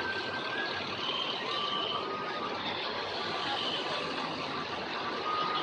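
Steady road traffic noise of passing vehicles, with faint short high tones over it.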